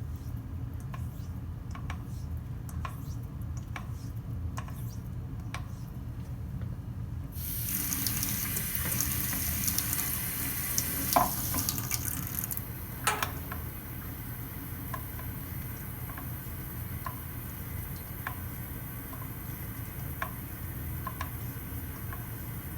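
Straight razor being honed with light pressure on a wet 8000-grit Norton waterstone, with light taps about once a second. From about 7 s to 12 s water runs, with a couple of sharper knocks near the end of that spell.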